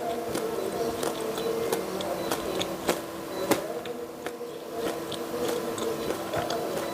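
Close-miked chewing of crispy fried jalakotek: irregular crunches and wet mouth clicks over a steady background hum.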